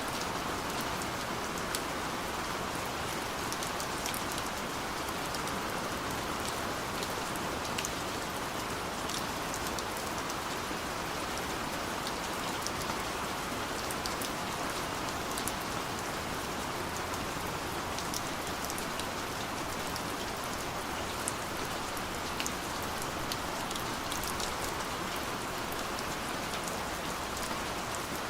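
Steady rain falling, an even hiss with the scattered ticks of individual drops striking a surface. No thunder.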